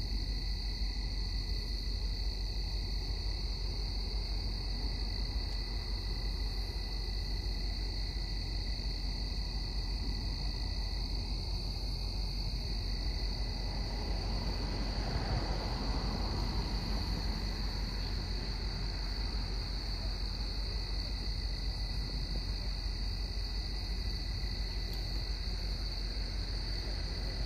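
Crickets chirping in a steady high-pitched chorus over a low, steady rumble, with a broad swell of noise for a few seconds about halfway through.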